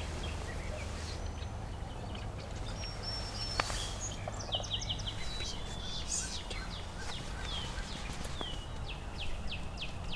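Small songbirds singing outdoors: runs of quick, high, downward-slurred notes, one run about four seconds in and another near the end, over a steady low rumble.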